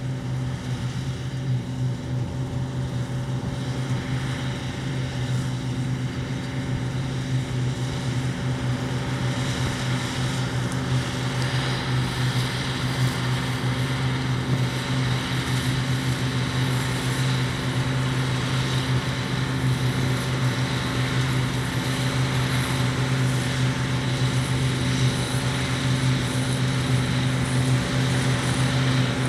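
Large diesel engine of harvest machinery running steadily at a constant speed, a low even hum that grows slowly a little louder.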